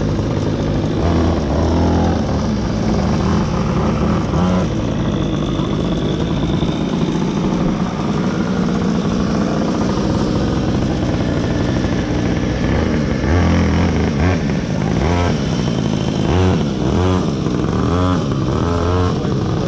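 Small gasoline engine of a kids' go-kart running steadily, with some changes in pitch in the second half.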